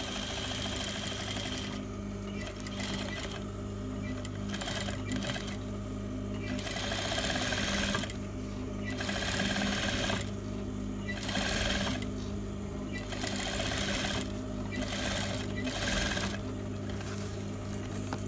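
Sewing machine stitching a line up the side of a zipper in short runs, stopping and starting every second or two. A steady low motor hum continues beneath and between the runs.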